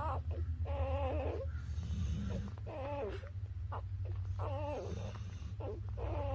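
Newborn puppies whimpering and squeaking while nursing: short wavering cries, about one a second.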